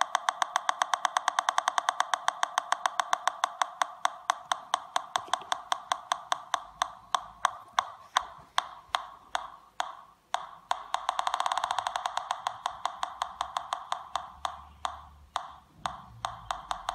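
Home-built PI Polones pulse-induction metal detector clicking through its speaker, several sharp ticks a second. The ticks thin out about six seconds in, crowd together again around eleven seconds, then space out once more; the tick rate changes as the detector responds to metal near its coil.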